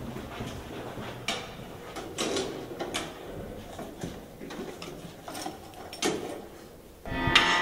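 A key and a small metal apartment mailbox door clicking and rattling as it is unlocked and opened, in a few separate clicks. Loud music starts suddenly near the end.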